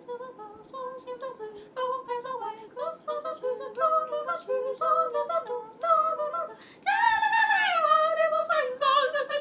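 A young woman singing a Christmas song unaccompanied, a run of short held notes stepping up and down, then a louder, longer phrase about seven seconds in that slides downward.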